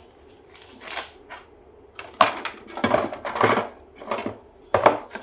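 Hands handling a new smartphone and its plastic packaging: irregular rustles, crinkles and clicks, with a sharper knock about two seconds in and another near the end.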